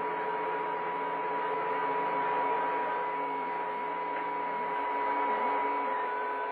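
CB radio receiving an open carrier on channel 28 with no voice on it: steady whistling tones over static hiss, with a lower hum underneath that stops about two-thirds of the way through.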